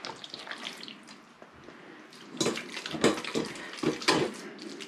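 Fish roe being rubbed by hand through a fine metal sieve: a run of wet, squelching scrapes, louder and more frequent in the second half.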